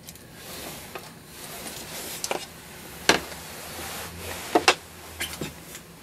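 Hands handling and setting down small objects on a reloading bench: a few light clicks and knocks, the sharpest two close together about four and a half seconds in.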